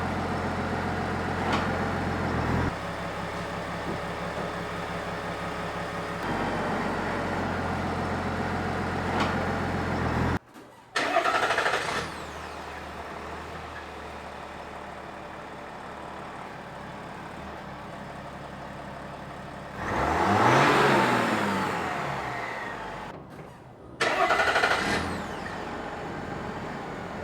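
3.0 L inline-six LM2 Duramax turbodiesel running through a PPE 4-inch single side-exit exhaust, mostly at a steady idle, in several spliced clips with abrupt cuts between them. About two-thirds of the way through, one rev rises and falls back.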